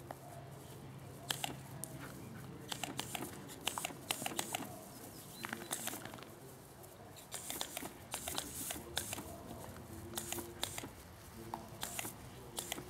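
Kelpie/collie-cross sheepdogs scampering and snapping on grass while a hose-gun sprays water jets at them: a busy run of quick rustles, clicks and patters, with short bursts of spray hiss.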